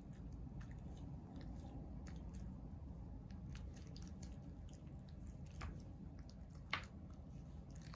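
Japanese Spitz licking a person's hand: small wet tongue and mouth clicks, scattered and irregular, with one sharper click a little before the end.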